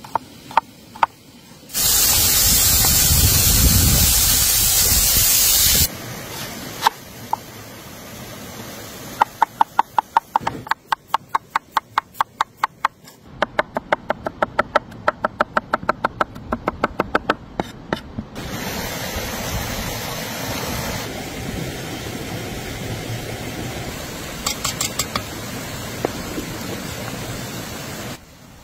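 A cleaver chopping onion on a wooden cutting board, in quick, even strokes of about four a second. Near the start there is a loud hiss lasting about four seconds. In the second half a steadier, quieter hiss with a few knocks goes with the steaming cast iron pot.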